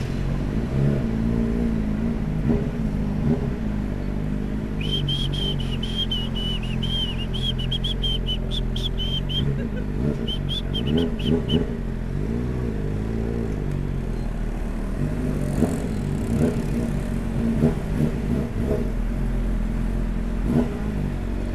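Suzuki Bandit's inline-four engine running with a heavy exhaust note, the revs rising and falling a few times. From about five seconds in, a quick string of high chirps sounds for several seconds.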